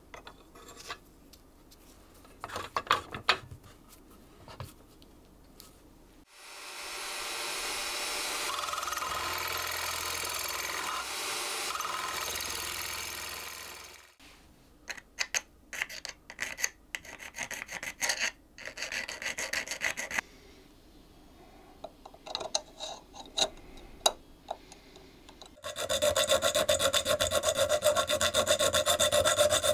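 Small electric drill running steadily for about eight seconds as a twist bit bores into the hollow shank of a steel key blank. Then come scattered clicks and scrapes of metal parts being handled, and near the end quick back-and-forth strokes of a small file on the metal as the key blank is fitted to an old lock.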